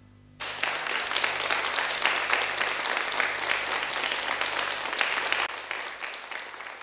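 Studio audience applauding after a song, the clapping coming in suddenly about half a second in and dying away over the last second or so, with a faint low hum underneath.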